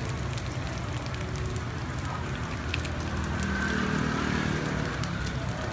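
Takoyaki batter sizzling in the oiled takoyaki griddle, with scattered small pops and ticks, over a low steady hum.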